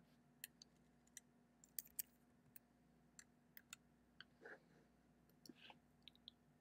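Faint, irregularly spaced clicks, a dozen or so, from keying in an accessory name and address on an ESU ECoS2 command station's control screen.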